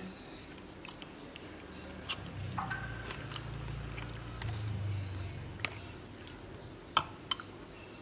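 Grated jelly being spooned into a tall glass over crushed ice: soft wet squelching, with scattered light clicks of a spoon against the glass, the sharpest about seven seconds in.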